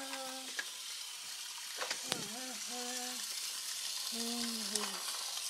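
Battery-powered toy train running along plastic track, a steady whirring hiss from its small motor with a few light clicks. A voice sounds three short held notes over it.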